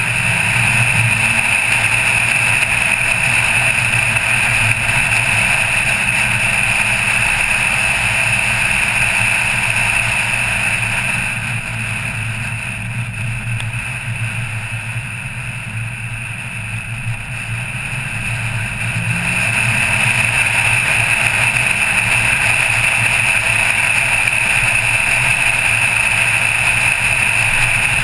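Car engine and tyre noise while driving at a steady pace. It drops for several seconds about halfway through as the car slows for a hairpin bend, then builds again as it pulls away.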